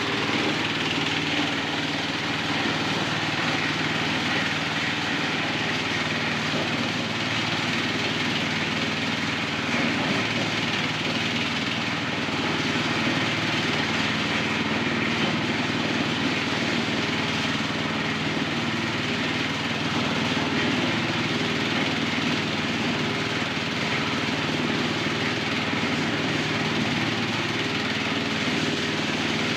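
Motor-driven corn sheller running steadily: an engine drone with a dense, even noise over it, with no change in speed.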